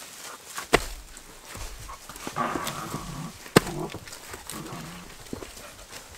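Stones knocking sharply as they are set down, twice, once about a second in and again past the middle. Between the knocks a puppy whines in short, wavering cries.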